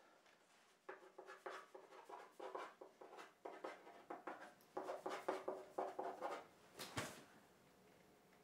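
Pen scribbling on paper on a hardboard clipboard: a quick run of short scratchy strokes, then one louder swish about seven seconds in.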